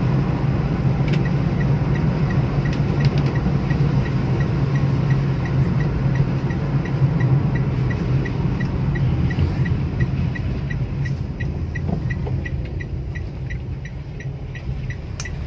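Car cabin noise while driving on a wet road: a steady engine and tyre rumble, with the turn-signal indicator ticking evenly, about three ticks a second, starting about a second in. The rumble eases slightly near the end as the car slows.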